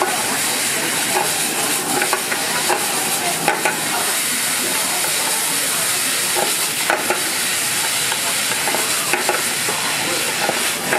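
Meat sizzling in a hot frying pan over a gas burner as it is stirred, a steady hiss with a few sharp clicks of wooden chopsticks knocking against the pan.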